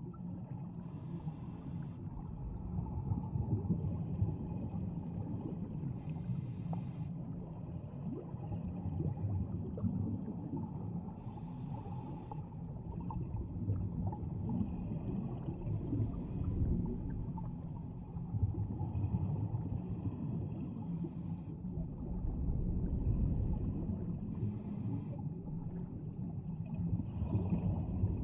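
Underwater sound of scuba divers breathing through their regulators. A steady low rumble and gurgle of bubbles, with a short hiss about every four to five seconds.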